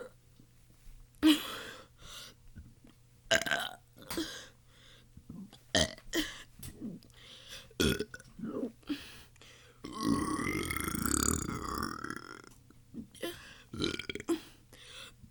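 A person burping over and over: a string of short burps, then one long drawn-out burp about ten seconds in.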